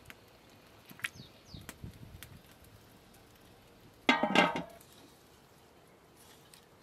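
A few light clicks and clinks as potato pieces go into a large aluminium cooking pot, then about four seconds in a loud, short pitched sound lasting about half a second.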